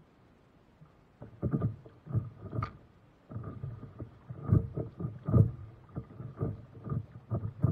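Lake water slapping and splashing against the hull of a stand-up paddleboard as it is paddled through light chop, an irregular run of slaps starting about a second in.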